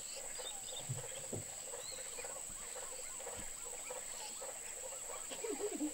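Faint chorus of wild animal calls: many short, overlapping chirps over a steady high-pitched whine.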